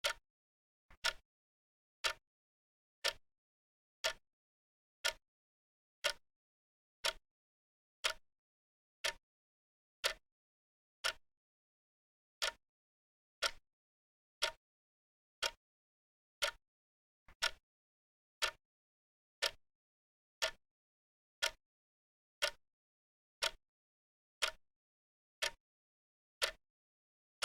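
Clock ticking steadily, one sharp tick about every second with dead silence between ticks; a couple of ticks come with a faint click just before them.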